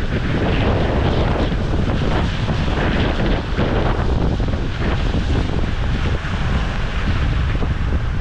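Strong hurricane wind buffeting the microphone: a loud, unbroken rush with a heavy low rumble that swells and eases in gusts.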